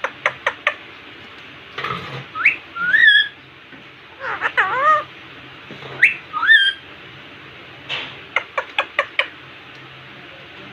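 Indian ringneck parrot making quick runs of sharp clicks and short rising, wavering whistled calls, with a run of about five clicks near the end.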